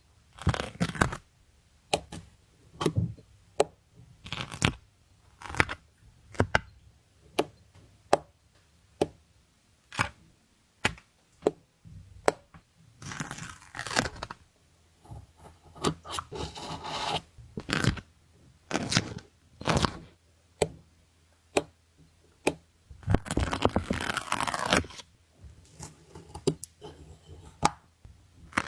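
Stickers being peeled off their backing sheet and pressed down by hand: many sharp taps and clicks, with a few longer peeling rasps, the longest near the end.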